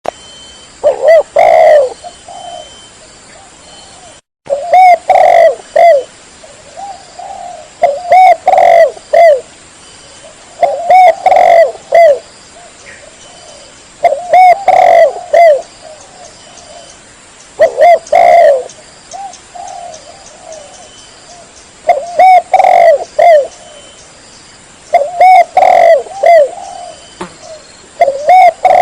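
Spotted dove (tekukur) cooing: its territorial song of a few low, bending coos in each phrase, repeated about every three and a half seconds.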